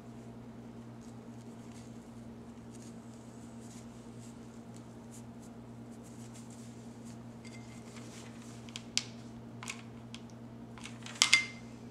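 Faint handling noise of silk rose petals and a glass candle holder: soft rustles and light clicks, with a few sharper clicks about nine seconds in and again near the end. A steady low hum runs underneath.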